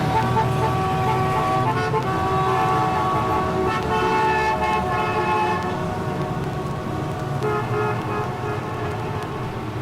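Street traffic with several car horns honking at once, held tones of different pitches overlapping and changing over a steady rumble of engines.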